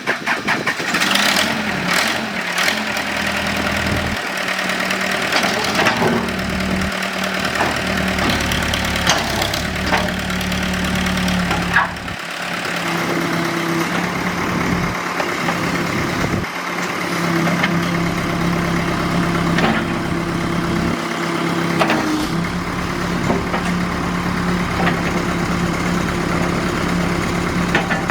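Case 480E backhoe loader's diesel engine running steadily at a low speed, with a few sharp knocks.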